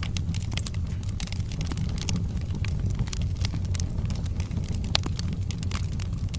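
Wood fire burning in a fireplace: a steady low rumble of flames with frequent sharp, irregular crackles and pops from the burning logs, one louder pop about five seconds in.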